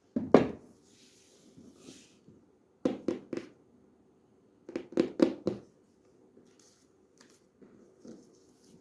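Hands handling a gift box and candy packaging: three quick clusters of taps and knocks, with a light rustle of wrapping between the first two.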